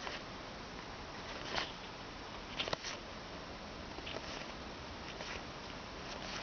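Magic: The Gathering trading cards being handled and flipped through: a few faint, short rustles and flicks of card against card over a steady hiss.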